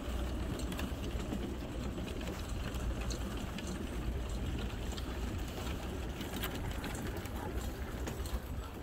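Wheels rolling along wooden dock planks: a steady low rumble with scattered clicks and rattles.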